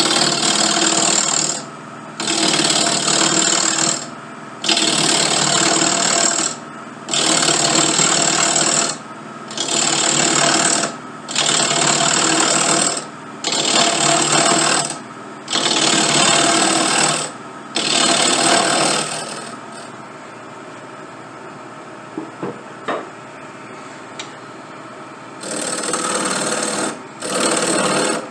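Wood lathe turning down a briar pipe shank: the cutting tool bites into the spinning briar in repeated passes of one to two seconds, with the lathe's motor running between them. About twenty seconds in the cutting stops, leaving the steady motor hum and a few light clicks, and the cutting passes start again a few seconds before the end.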